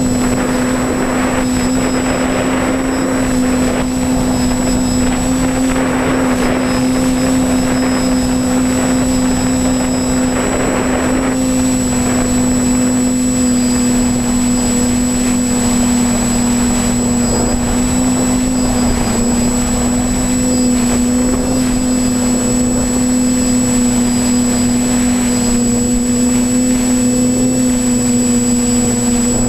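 TBS Discovery Pro quadcopter's electric motors and propellers humming steadily in flight, the pitch wavering slightly. A rushing noise swells several times in the first ten seconds or so.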